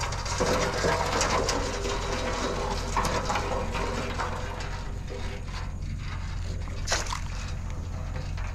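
Rope and wire crab-net handling noise over a steady low rumble, with a short splash about seven seconds in as the crab net drops into the water.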